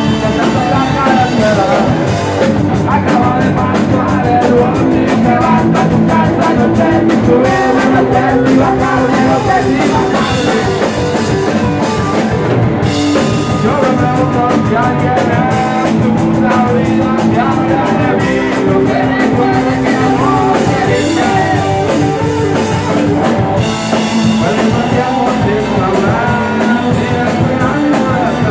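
A live rock band playing: electric guitars, bass guitar and drum kit, with a man singing lead.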